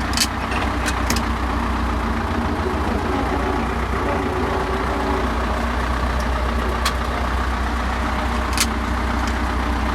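YuMZ tractor's diesel engine running steadily while driving in low-range third gear, with a few short clicks. There is no gearbox knock in low range.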